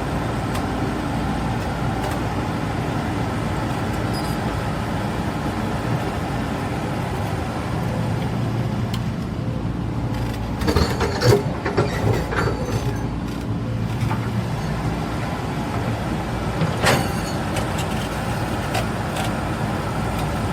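Caterpillar 395 hydraulic excavator's diesel engine running steadily. A cluster of sharp knocks comes about halfway through, and another single one comes later.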